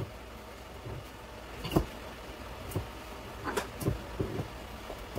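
A knife scraping and tapping at the foil seal on a wine bottle: a few scattered light clicks and scratches over a steady low hum.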